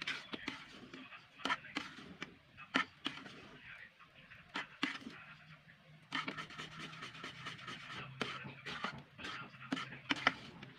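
A spatula stirring a thickening cornstarch and coconut-milk pudding in a wok, scraping the pan and knocking against it at irregular intervals.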